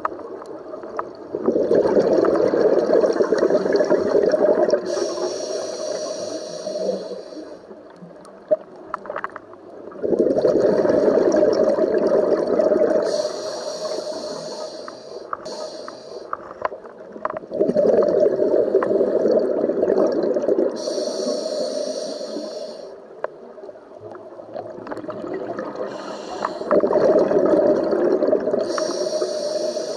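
Scuba diver breathing through a regulator underwater: four long rushes of exhaled bubbles about eight seconds apart, each with a hiss of the regulator near its end.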